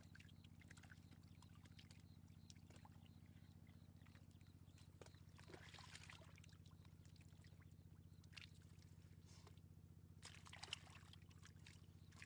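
Faint splashing and trickling of water in scattered bursts, over a steady low hum.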